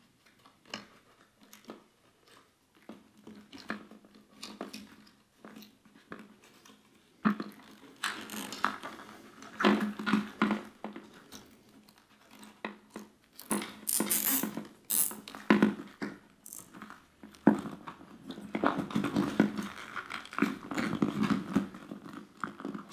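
Hands handling wiring and plastic parts on a motorcycle's front fairing frame: scattered clicks, rustles and scrapes, sparse at first and then coming in several busier clusters.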